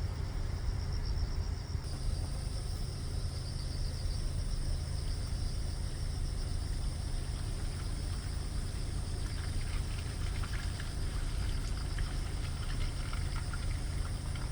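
Insects trilling steadily in high, finely pulsing bands over a low, steady rumble.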